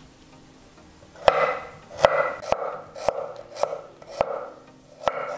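Kitchen knife slicing radishes thinly on a wooden cutting board: about seven cuts from about a second in, each a crisp crunch through the radish ending in a sharp knock of the blade on the board.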